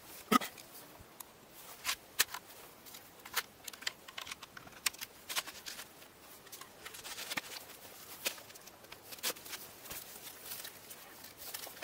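Sharp, irregular clicks and crunches from splitboard touring gear moving in snow, about one a second, with a brief squeak near the start.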